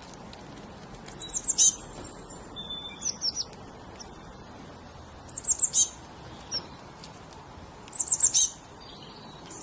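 A small songbird singing a short, high phrase of four or five quick falling notes, repeated three times about three seconds apart, with a few softer chirps between phrases.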